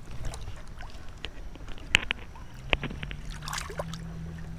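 Pond water sloshing and splashing as a largemouth bass is held in the water and released by hand, with two sharp splashes about two and three seconds in.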